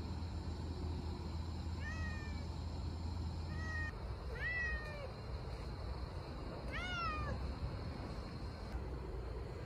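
Orange-and-white feral cat meowing, four meows spaced a second or two apart, each rising and then falling in pitch; the loudest come about halfway through and again a couple of seconds later.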